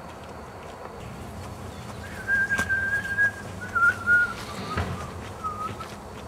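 A person whistling a few slow, held notes that mostly step downward, with a couple of sharp knocks among them.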